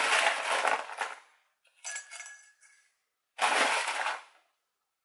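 Coarse masa (decomposed granite) stones dropped by hand into a ceramic plant pot, clattering and clinking against the pot and each other in three short bursts.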